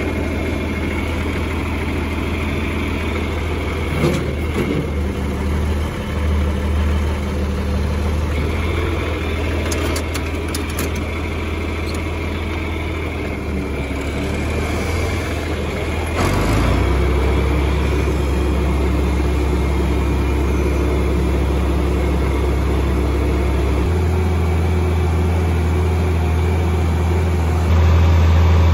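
John Deere tractor engine running steadily. Its low note drops and gets louder about two-thirds of the way in, shifts again later, and rises once more near the end.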